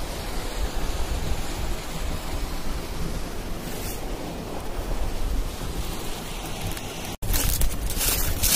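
Steady wind noise rushing over the microphone. About seven seconds in it cuts off abruptly and gives way to footsteps in rubber boots crunching on dry leaves and patchy snow.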